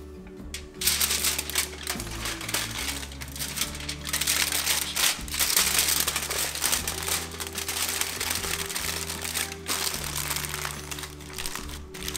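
Aluminium foil crinkling and rustling as hands fold and crimp it tightly around a piece of brisket, starting about a second in.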